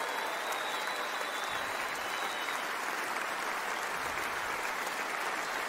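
Large convention-hall audience applauding steadily.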